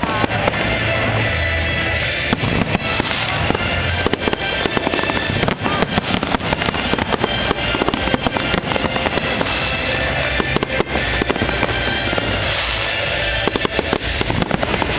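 Fireworks going off in quick succession, a dense run of bangs and crackles, over music playing at the same time.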